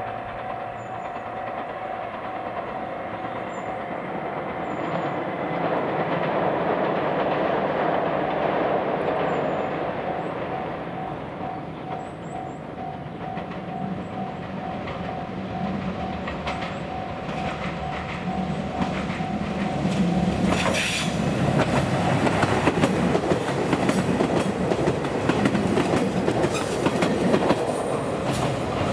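A three-car JR Shikoku 2700 series diesel railcar train approaches, its engines running with a steady tone. From about twenty seconds in it grows louder, with the wheels clattering over the rail joints. Faint bird chirps can be heard early on.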